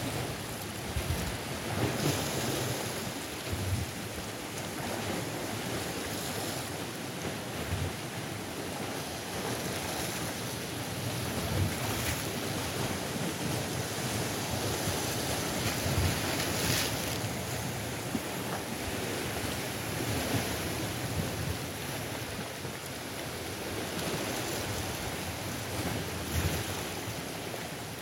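Sea surf washing in over dark shore rocks: a steady hiss of moving water with waves surging and breaking against the boulders every few seconds.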